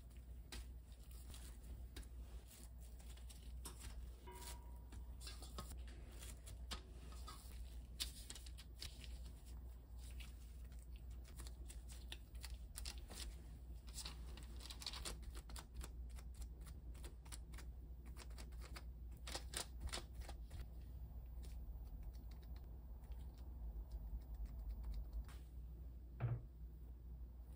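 Soft rustling and light tapping of gloved hands shaping peanut butter cookie dough and setting it down on a parchment-lined baking tray, many small irregular sounds over a low steady hum.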